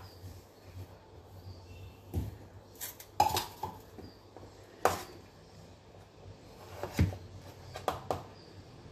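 Scattered knocks and clinks of kitchen utensils and cookware while tubers are cut and loaded into a cooking pot: about half a dozen separate sharp taps a second or two apart.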